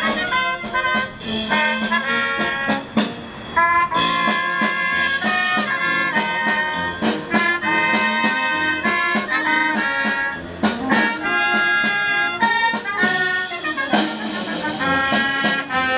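Small brass band playing a dance tune: trumpets and other brass holding melody notes over a steady drum beat.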